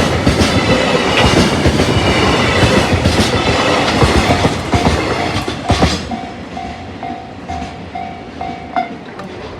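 Freight train wagons rolling past with clickety-clack from the wheels over the rail joints; the rumble drops off about six seconds in as the tail of the train goes by. A level crossing alarm rings in an even on-off pulse about twice a second and stops near the end, as the crossing clears.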